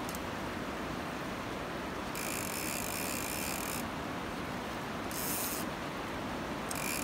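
Steady rush of river water, with a high, even buzz of a fishing reel's ratchet that runs for about a second and a half starting about two seconds in, then comes back briefly twice.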